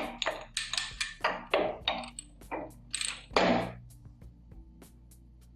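Metal clinks and knocks from a Hypro 9303C pump's hydraulic-motor shaft and seal assembly as the shaft is pushed out and the loose metal parts are handled, a dozen or so quick hits in the first three and a half seconds. Faint background music with a light ticking beat follows.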